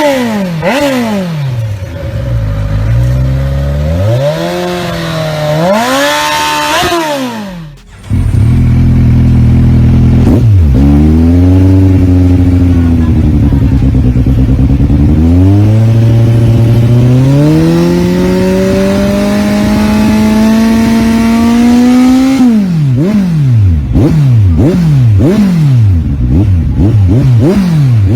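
Modified Kawasaki Z1000 inline-four engine being revved: quick throttle blips, then a longer rev that rises and falls. After a cut, the engine runs with a note that climbs slowly in pitch, and near the end comes another series of rapid throttle blips.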